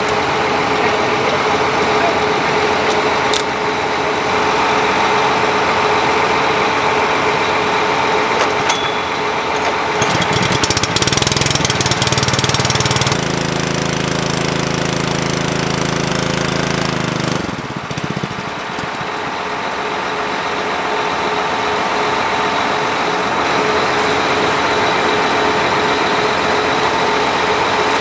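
Engine running steadily. A deeper hum joins for several seconds about halfway through, then drops away.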